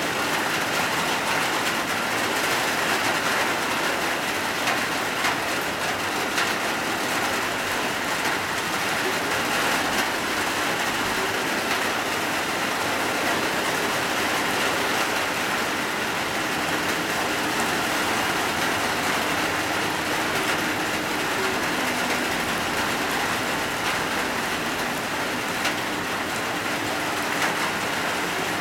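Heavy rain falling steadily: a dense, even hiss of drops with occasional single drops ticking close by.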